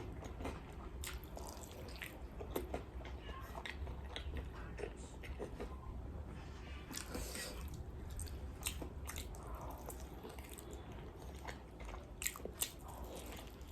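Close-miked eating of crispy fried chicken: crunchy bites and chewing with small wet mouth clicks, irregular throughout.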